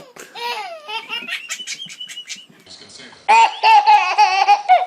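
A baby laughing and squealing, ending in a loud, drawn-out high squeal in the last second and a half.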